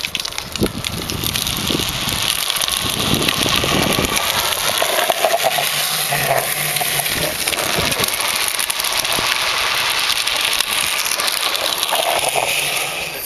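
Drift trike's hard rear wheels sliding and rolling down a tarmac path: a steady, loud, rough scraping rumble that builds up over the first couple of seconds.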